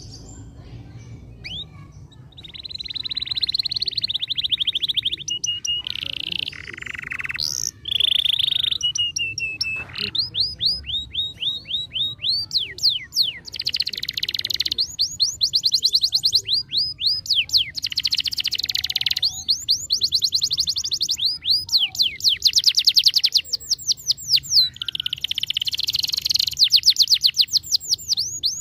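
Domestic canary singing a long, varied song: fast rattling trills and runs of quick repeated sweeping notes, phrase after phrase with short breaks, starting about two seconds in.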